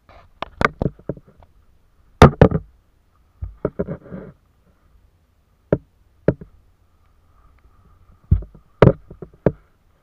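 Sharp knocks and clatters against a small boat's frame, in irregular clusters. The loudest comes a little over two seconds in, with a rattling patch around four seconds in and another cluster of knocks near the end.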